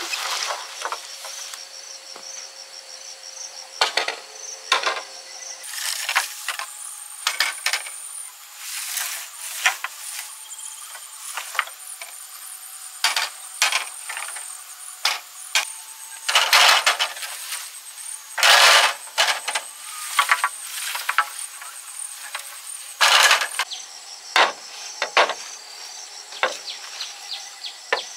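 Insects chirring steadily and high-pitched, with irregular knocks and short scraping, rustling sounds on top, a few of them lasting about a second.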